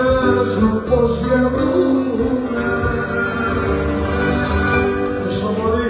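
Live Cretan folk music: a bowed Cretan lyra with string accompaniment, and a man singing around the start.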